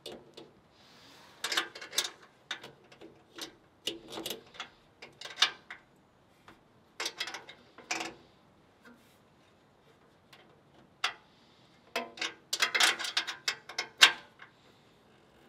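Irregular clusters of sharp clicks and knocks, bunched around two, four, seven to eight and twelve to fourteen seconds in, the loudest near the end.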